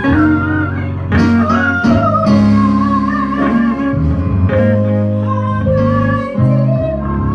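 Slow instrumental guitar music over held bass notes, the guitar notes wavering and gliding.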